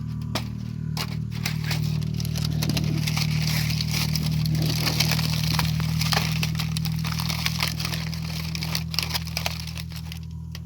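Wood fire crackling, with irregular sharp pops and snaps of burning wood over a steady low hum.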